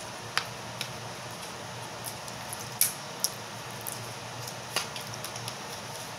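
Plastic toy packaging being handled and opened by hand: a few sharp, separate clicks and crinkles over a faint steady room hum.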